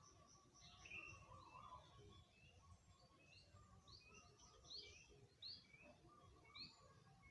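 Faint birds chirping: a run of short, quick notes, a few a second, some sliding up and some down, over a low background rumble.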